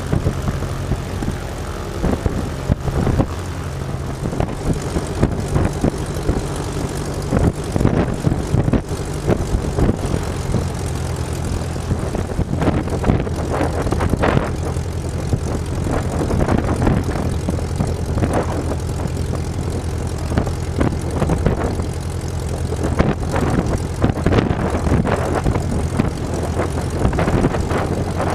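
Light single-engine propeller airplane's piston engine running at low taxi power: a steady, even drone with the beat of the propeller.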